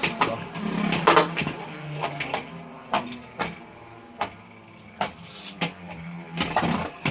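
Two Beyblade Burst spinning tops, Demise Devolos and Mirage Fafnir, battling in a stadium: a steady whirring hum broken by irregular sharp clacks as the tops strike each other and the stadium wall.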